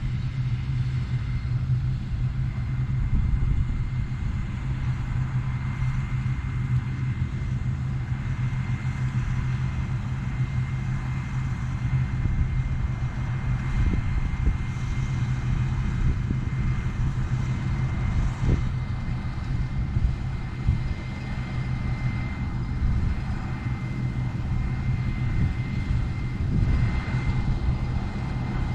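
Claas Lexion 420 combine harvester running steadily: a constant low engine drone with a thin, steady high whine from the machinery.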